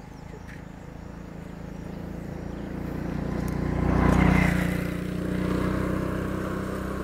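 Motorcycle engine passing close by, growing louder to a peak about four seconds in, then fading as it moves away.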